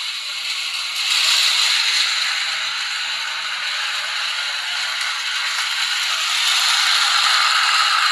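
Miniature model train running along its track, a steady mechanical rattle and whir of its small motor and wheels that gets louder about a second in and swells again near the end.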